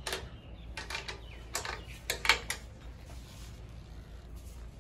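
Several short clicks and scrapes of hands fitting a bulb into a Royal Enfield Bullet's tail-light housing, the loudest and sharpest about two seconds in.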